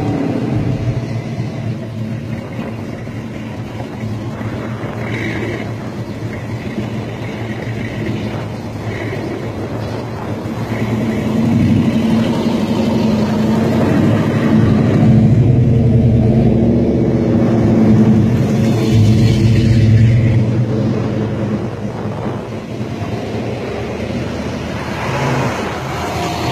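V8 engines of Pontiac Trans Ams and Firebirds running at low speed as the cars pull away one after another past the microphone. The sound swells louder for several seconds midway as the nearest cars go by.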